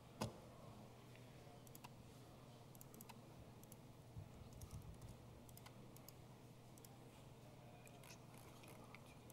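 Faint computer keyboard and mouse clicks, scattered and irregular, with one sharper click just after the start, over a steady low room hum.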